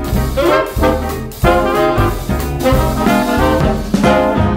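Upbeat swing-style background music with brass horns playing over a steady, punchy beat.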